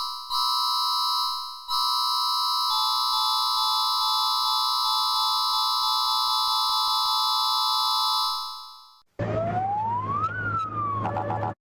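Electronic emergency-alert attention tone: a steady, shrill chord of several tones, cut off briefly twice near the start, then fading out about eight seconds in. After a short gap, a noisier alert sound begins, with one tone sliding up and then back down like a siren.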